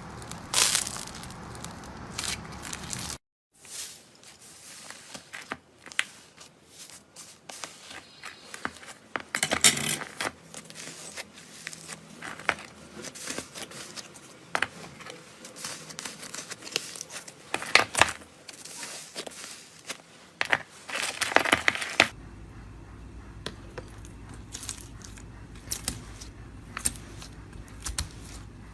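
Slime being handled by hand: squishing and pressing, with many sharp crackles, pops and clicks. The background changes abruptly about 3 seconds in and again about 22 seconds in, as one clip cuts to the next.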